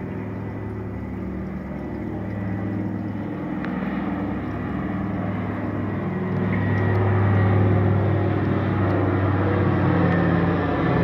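Douglas DC-3's two radial piston engines running as the plane approaches, a low steady drone that grows steadily louder, loudest in the last few seconds.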